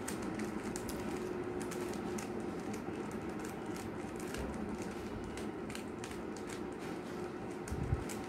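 Rubik's cube being turned rapidly by hand: a quick, irregular run of plastic clicks as the layers snap round, over a steady low hum, with a soft thud near the end.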